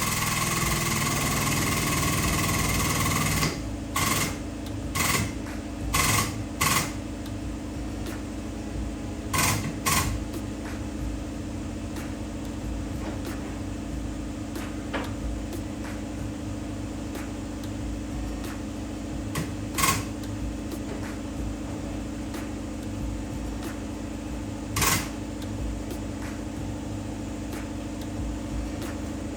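A machine runs loud with a steady whine for about three and a half seconds, then cuts off. A steady low machine hum carries on, with scattered sharp metallic knocks and clicks, a cluster of them in the first few seconds after the cut-off and a few more later.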